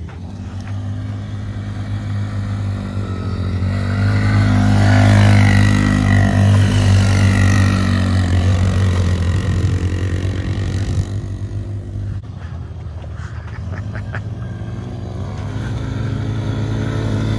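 ATV engines running and revving, growing louder a few seconds in, easing off about two-thirds of the way through, then building again near the end.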